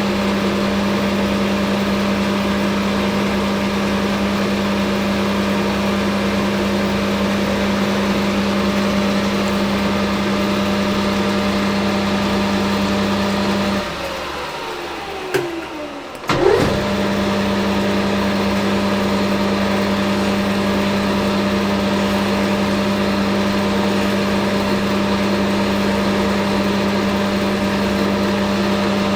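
Hafco Metal Master AL960B metal lathe running steadily with a constant hum. About 14 seconds in it is switched off and winds down with a falling pitch, then about two seconds later it starts up again with a quick rise in pitch and runs on.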